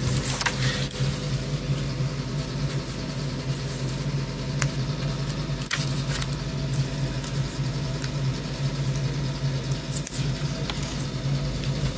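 A steady low mechanical hum, with a few light clicks and rustles of the paper manual being handled.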